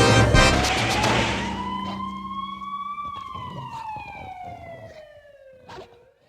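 A slow wailing siren rises for about three seconds, then falls for about three, and starts to rise again at the end. The tail of band music fades out under it in the first second or two, and there is a short knock near the end.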